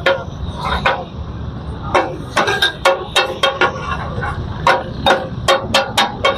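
Metal spatula striking a large flat iron tawa in the katakat style of chopping and stirring: irregular quick runs of sharp metallic clanks, about fifteen in all, over a steady low background rumble.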